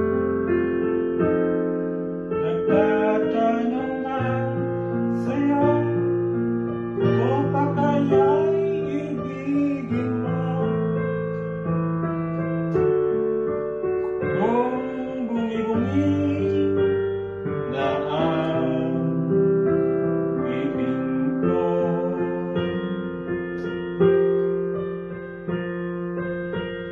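Digital piano played with sustained chords and bass notes. Through several stretches a voice sings a wavering melody over the piano.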